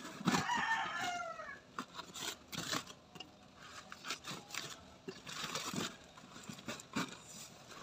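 A chicken calls once near the start, a falling cry about a second long. Scattered soft knocks and rustles follow as ripe bananas are set into a blackened metal pot.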